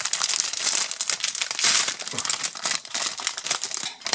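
Thin clear plastic food bag crinkling and rustling continuously as hands pull it open and handle it.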